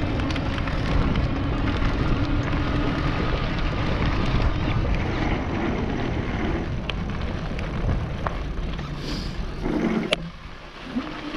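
Wind buffeting the camera microphone on a moving e-bike, a steady rushing noise with a faint low hum beneath it. The noise drops away briefly about ten seconds in.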